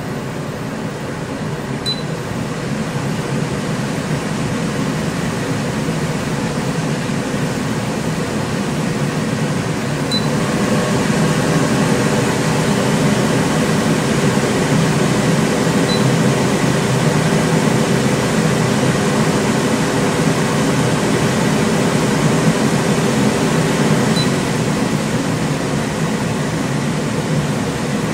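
Silverline Comet island range hood's extractor fan running: a steady rush of air with a faint motor hum. It grows louder over the first ten seconds or so, then holds steady.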